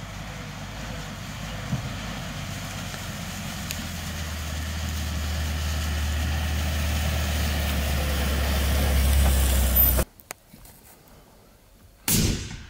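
A vehicle engine runs steadily and grows louder, then cuts off abruptly about ten seconds in. Near the end comes a single loud, sharp report, a hunting rifle shot at a roe buck.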